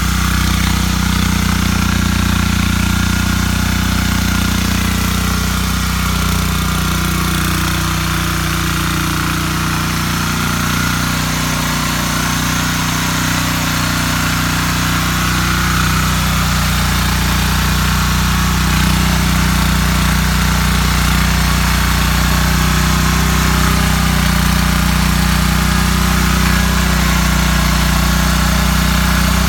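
Small petrol engine of a walk-behind rotary tiller running steadily, with a low, even engine note.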